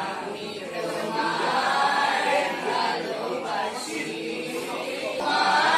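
A group of children singing together as a choir, getting louder near the end.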